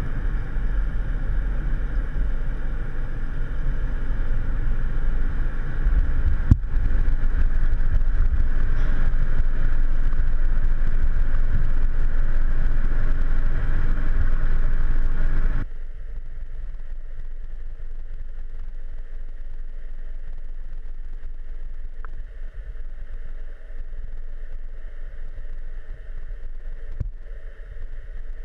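Muffled noise through a submerged camera: a steady low underwater rumble with a faint hum. It drops sharply in level about halfway through and runs on more quietly.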